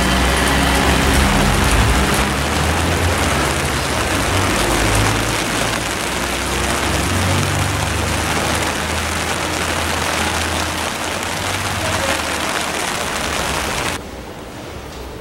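Steady hiss of heavy rain, with a deep sustained drone beneath it that shifts pitch a few times. Near the end both drop suddenly to a much quieter hiss.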